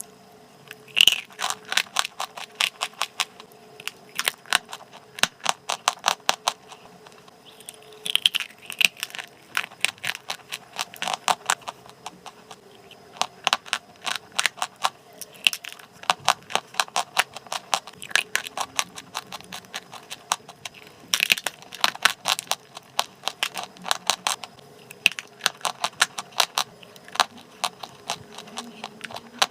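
Dry crunchy chalk clay crunching as it is bitten and chewed close to the microphone: dense sharp crackles coming in bursts every few seconds.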